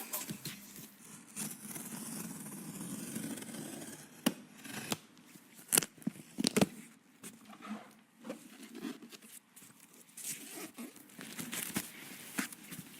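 Hands handling PC components and their packaging: rustling and scraping, with a few sharp clicks and taps around the middle.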